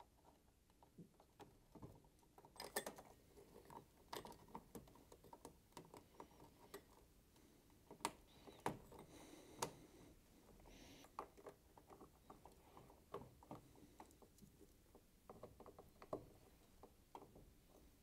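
Plastic wiring connectors and wire looms being handled and pushed onto a washing machine's display circuit board: a scatter of small, irregular clicks and rattles, a few sharper ones about three seconds in and again around eight to ten seconds in.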